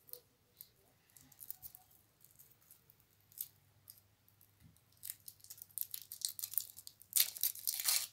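Kinder Surprise egg's foil wrapper crinkling and tearing as it is peeled off by hand. The crackling is sparse and faint at first, then grows louder and busier from about five seconds in.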